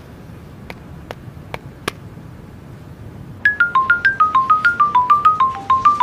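Four faint clicks of buttons pressed on a mobile phone, then, from about three and a half seconds in, a mobile phone ringtone plays a quick chiming melody of short notes, about five a second.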